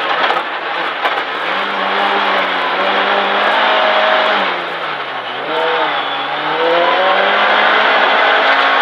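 Ford Fiesta R2 rally car's 1.6-litre four-cylinder engine, heard from inside the cabin over tyre and road noise. The revs step up as it shifts down, hold, dip about five seconds in as it slows for a corner, then climb steadily again under acceleration.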